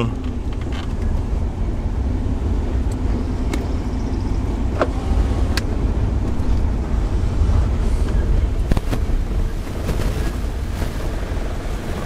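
Car engine and tyre rumble heard from inside the cabin as the car drives slowly along the road, with a few light clicks a few seconds in.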